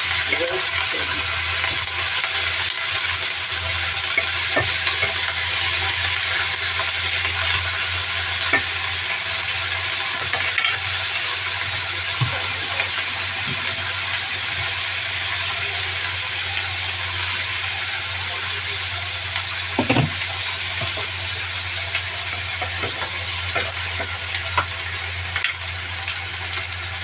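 Vegetables sizzling as they stir-fry in hot oil in a pan, a steady frying hiss with scattered clicks and scrapes of a utensil stirring against the pan.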